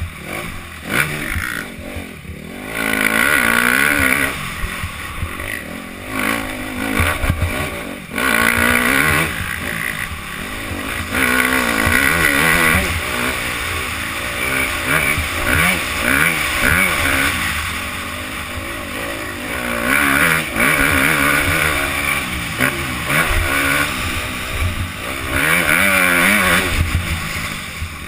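Motocross bike engine revving hard, its pitch climbing and falling again and again as the rider accelerates and backs off over the track's jumps, heard from a helmet-mounted camera.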